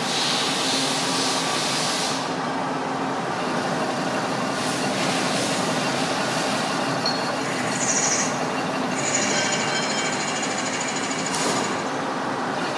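CNC lathe running as it machines a cast iron pipe fitting: a steady mechanical noise with a faint hum, brief spells of hiss near the start, around five seconds and near the end, and a high whine coming in about eight seconds in.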